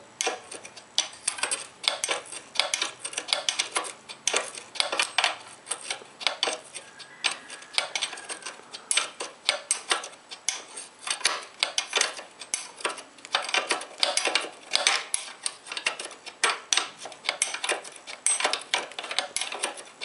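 Steel spanner clinking and scraping against a tight 14 mm nut on a Honda CD 70 as the nut is worked loose in short turns: quick, irregular metallic clicks, several a second.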